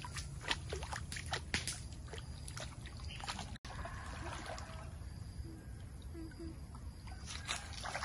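Bare feet splashing and sloshing in shallow pond water, in short irregular strokes that bunch up in the first few seconds and again near the end, with faint voices now and then.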